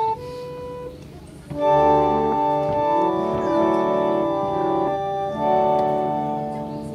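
An old wooden keyboard organ played by hand: a couple of single notes, then from about a second and a half in, full chords held and changed, fading toward the end.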